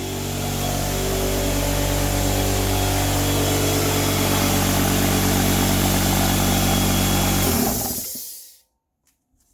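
Electric air compressor and miter saw running together, a loud steady motor hum with a hiss. It grows louder in the first second, then cuts off about seven and a half seconds in and fades to quiet within a second.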